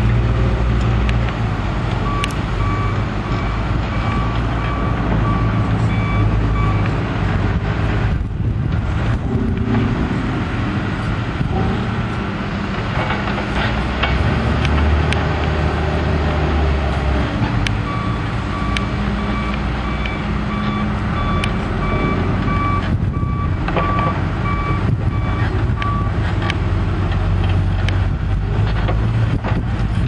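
John Deere backhoe loader's diesel engine running steadily, with its backup alarm beeping in reverse at about two beeps a second. The beeping stops about seven seconds in and starts again after the middle.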